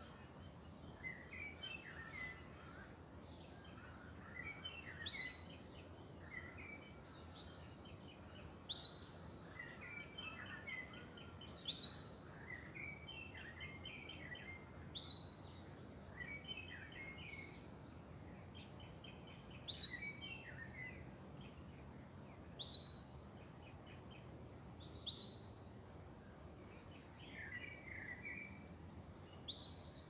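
Wild birds singing: one bird gives a loud, short rising whistle every few seconds, with softer twittering phrases from other birds in between, over a faint steady rush of river water.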